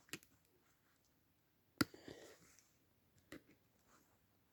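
A few sharp clicks and taps of a plastic laptop AC adapter and hand tools being handled, the loudest about two seconds in with a brief rustle after it.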